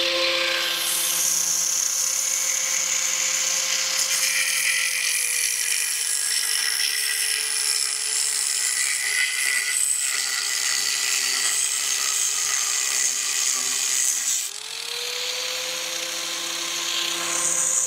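Corded angle grinder cutting a steel joist hanger: a steady motor whine with a bright grinding hiss, the whine dragging slowly lower in pitch as the disc bites into the metal. About fourteen seconds in the whine dips sharply and the level drops, then the motor spins back up and the grinding hiss returns near the end.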